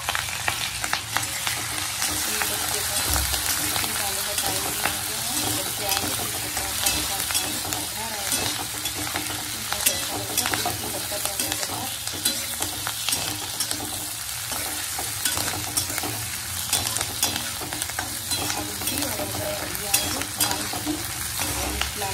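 Chopped green chillies sizzling in hot oil in a metal kadhai, stirred with a steel spatula that scrapes and clicks against the pan over a steady frying hiss.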